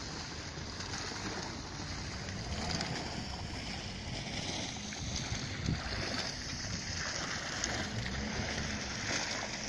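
A single vertical fountain jet splashing steadily back into its shallow basin, with wind buffeting the microphone.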